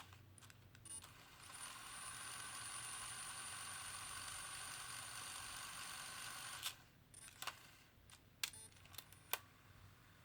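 Sony WM-EX1 Walkman's cassette mechanism running after its belt replacement: a faint steady whir with a thin high whine for about five seconds, stopped by a sharp clunk, then a few sharp clicks of its buttons.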